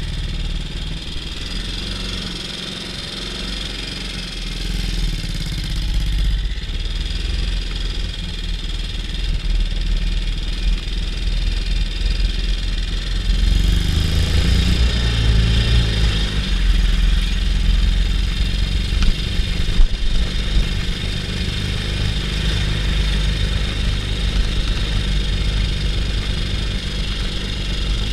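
BSA C15 Star 250's single-cylinder four-stroke engine running steadily at low road speed. A large modern diesel tractor's engine joins in and is loudest about halfway through, as the motorcycle passes close by it.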